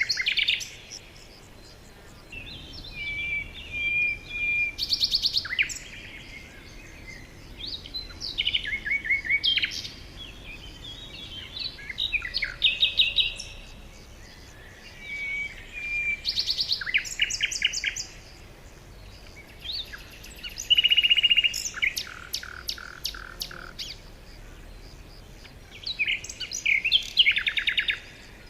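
Songbirds singing: a run of short, varied whistled and trilled phrases, each a second or two long, with brief pauses between them.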